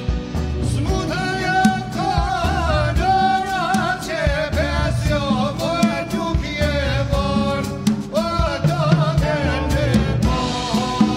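Man singing an ethno-jazz folk song live, his voice wavering through ornamented runs, over a band with drum kit. The singing comes in about a second in.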